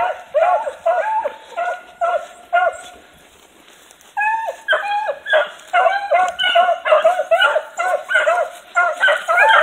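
A small pack of beagles baying as they run a rabbit's scent trail: short bawling barks that rise and fall, several dogs overlapping. The baying stops for a second or so about three seconds in, then starts up again more thickly and faster.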